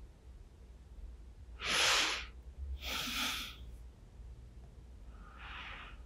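A sleepy person breathing out heavily three times close to the microphone, like drowsy sighs. The first is the loudest, about two seconds in, and the last is softer, near the end.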